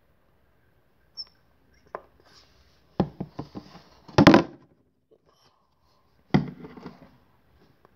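Handling knocks and thumps of things being put down and moved about on a table close to the microphone. There is a sharp knock about three seconds in, the loudest clatter about a second later, and another sharp knock a couple of seconds after that.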